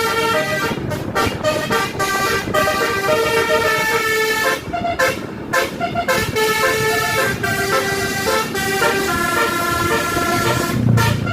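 Basuri telolet horn on a bus playing a melody of stepped tones, with several short breaks between phrases.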